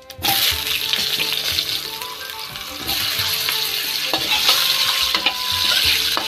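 Potato wedges sizzling in hot mustard oil in a kadai, starting suddenly just after the start, with scattered knocks and scrapes of a metal spatula stirring them.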